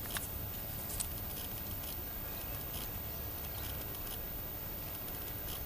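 Footsteps and light, irregular clicks on a towpath while walking a dog on a leash, over a steady low rumble.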